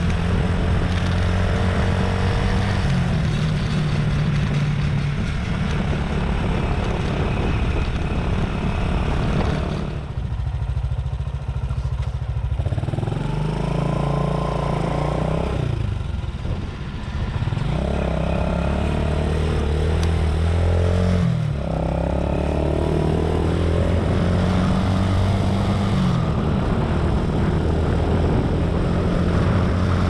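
Motorcycle engine heard from the rider's seat while riding, easing off about ten seconds in, then accelerating through the gears: its pitch climbs and drops back at each shift, three or four times.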